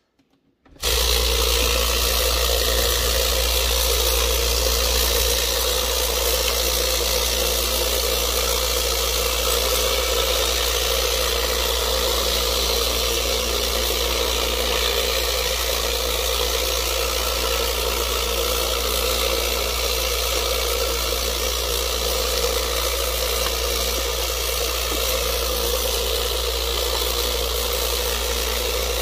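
Lot-O vibratory rock tumbler switched on about a second in, then running steadily: a low hum under an even rattling noise from the barrel of Bahia agates and ceramic media in aluminum oxide polish, at the start of the polish stage.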